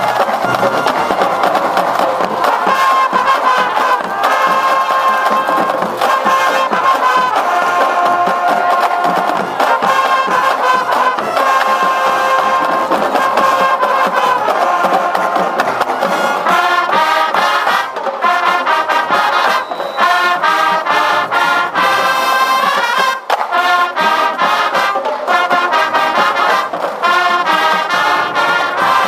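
High school marching band playing: brass instruments carry sustained chords and melody lines, with sharp drum strikes through them.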